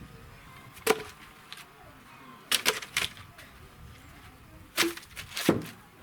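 Sharp wooden knocks, about six of them: one, then a quick cluster of three, then two more near the end. This is typical of wood being chopped or thrown down.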